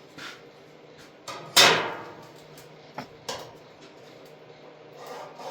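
A few sharp knocks and clatters of metal being handled, the loudest about one and a half seconds in with a short ring after it, and lighter clicks about three seconds in.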